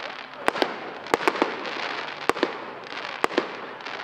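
Aerial fireworks shells bursting: about eight sharp bangs, several coming in quick pairs about a sixth of a second apart, over a steady background noise.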